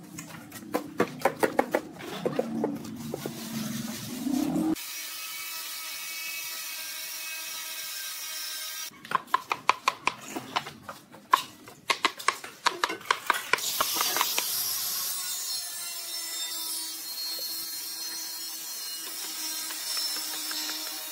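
Mallet tapping a large ceramic tile to bed it into the mortar: two bouts of quick, repeated knocks, with a steady hum between them and after them.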